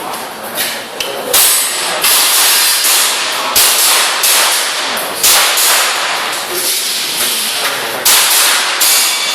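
Airsoft gas pistol firing a string of shots, each a sharp hissing crack spaced unevenly about a second apart.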